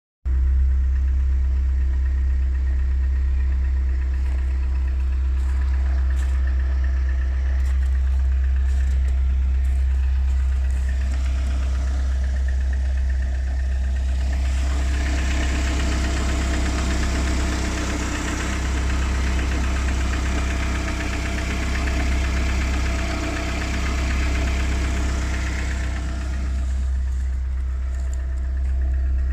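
Lada Kalina's 1.6-litre 16-valve VAZ-21126 engine idling cold with a strange knock. The knock shows only until the coolant warms to about 50 °C, and the owner cannot tell its cause. The sound gets brighter and louder for about twelve seconds in the middle.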